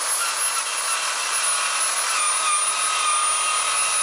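Power drill spinning a wire wheel brush against a rusty metal bracket: a steady high whine over a scratchy hiss.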